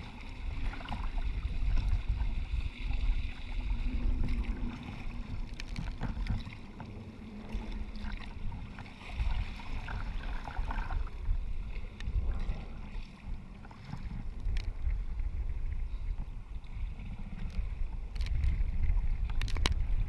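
Wind noise on the microphone over waves washing and splashing against a sea kayak's hull as it runs downwind through choppy water, with a few sharp ticks here and there.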